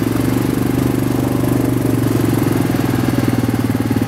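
Sport ATV (quad bike) engine running at a steady, unchanging speed as it is ridden along a dirt track.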